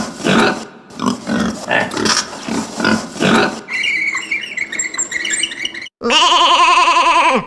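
Recorded pig grunting and squealing in quick irregular bursts for the first three and a half seconds. After a softer stretch, a sheep begins a long bleat with a wavering pitch about six seconds in.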